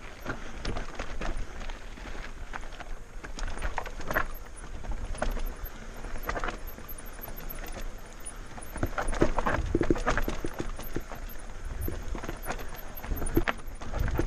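Mountain bike riding down a rocky trail: irregular knocks and rattles as the tyres and frame jolt over stones, with wind rumbling on the microphone. The jolting is loudest about two-thirds of the way through.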